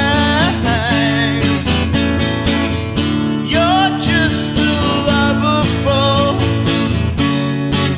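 Acoustic guitar strummed steadily in a slow ballad, with a wordless held melody line sung with vibrato over it in a few places.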